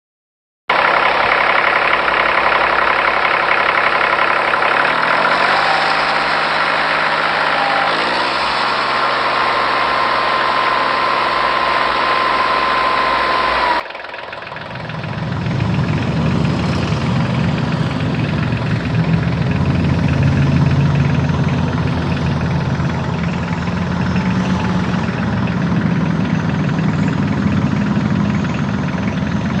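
A vehicle engine running, its pitch stepping up twice. About 14 seconds in it cuts abruptly to a lower, heavier engine running steadily.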